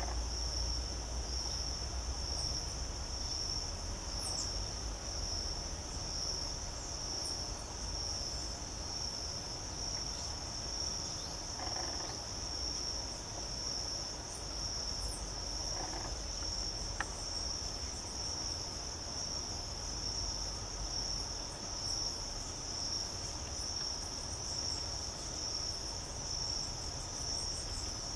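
Insect chorus of crickets: one high, evenly pulsing trill that runs on unbroken.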